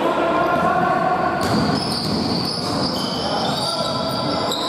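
Basketball game on a hardwood gym floor: the ball bouncing and sneakers squeaking as players run up the court, all echoing in the large hall. High squeaks become prominent about a second and a half in.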